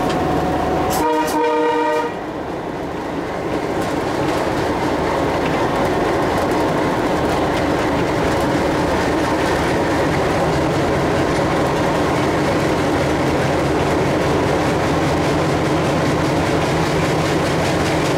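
Alco WDM3A diesel locomotive's 16-cylinder Alco 251 engine running under load, heard inside the cab with rail running noise, and the locomotive horn sounding once, briefly, about a second in. After the horn the sound dips and builds back up over a couple of seconds, then stays steady.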